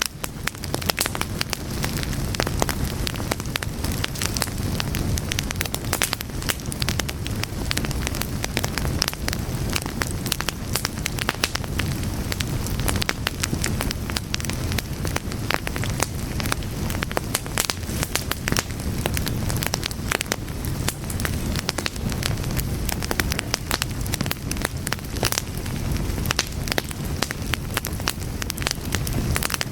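Fire crackling: a steady low rush of flames with frequent sharp pops and snaps, fading in over about the first second.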